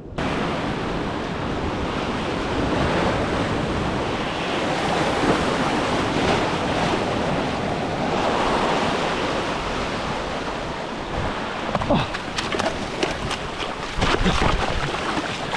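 Sea swell washing over a rock platform: loud, rushing whitewater close to the microphone. Near the end, a run of sharp knocks and scrapes on the rocks as the person scrambles after slipping in the surge.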